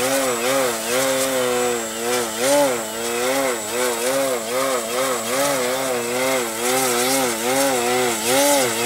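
RC aerobatic plane's motor and propeller held in a prop hang, its pitch rising and falling about twice a second as the throttle is worked to keep the plane hovering nose-up.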